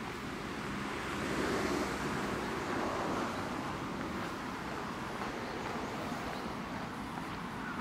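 Steady outdoor rushing noise, swelling about a second in and easing back after about three seconds, with no distinct footsteps or other events.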